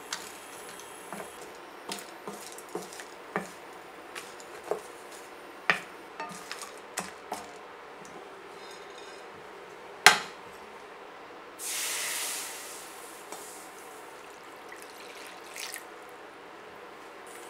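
Wooden spoon stirring whole spices (cinnamon sticks, cardamom pods, cloves) around a dry stainless steel skillet, with scattered clicks and rattles, and a sharp knock on the pan about ten seconds in. About twelve seconds in comes a brief hiss as liquid goes into the hot pan.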